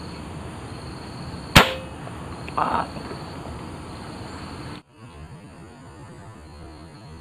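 A single shot from a scoped air rifle, one sharp crack, followed about a second later by a shorter, duller knock, over a steady background of insects.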